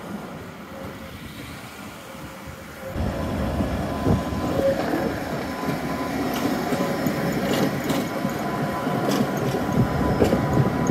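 Tatra T4D tram with a snowplough car coupled on, rolling past close by on street track. The running noise gets much louder about three seconds in and carries a thin steady whine, with a few sharp wheel clicks in the last few seconds.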